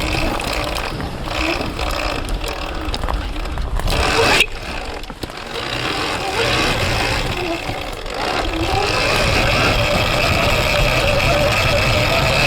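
Electric dirt bike's TORP TM50 Pro hub-drive motor whining, its pitch rising and falling with the throttle, over knocks and rattles of the chassis on rough ground. A sharp loud knock comes about four and a half seconds in, and from about nine seconds the whine holds steadier and higher.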